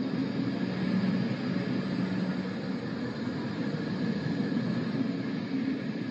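Steady ambient drone: a low, even rumble with a hiss and a few faint held tones over it, without beat or sudden events.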